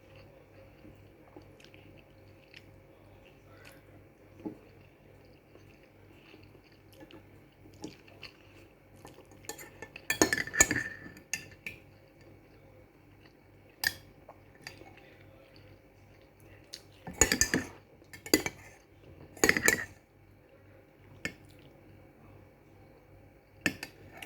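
Eating utensils clinking and scraping against a dish in a few short clusters, about ten seconds in and again past the middle, with quiet stretches between.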